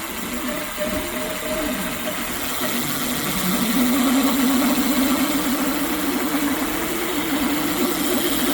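Ducaway Silvertip 8's electric motor running the wheel with a strange wavering hum and vibration, louder and rougher from about three and a half seconds in. The owner suspects a defective motor or bearing, since the wheel turns smoothly without the motor and nothing is rubbing.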